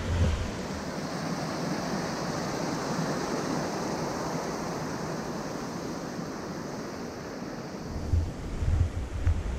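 A mountain creek rushing over rocks and through rapids: a steady, even roar of water. Near the end, gusts of wind buffet the microphone with low rumbles.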